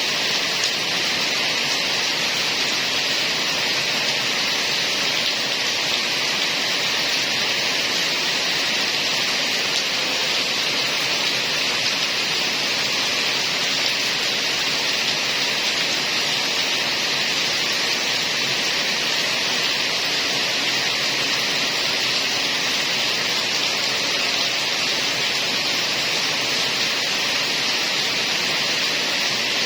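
Heavy rain falling steadily: an even, unbroken hiss with no single drops, thunder or other events standing out.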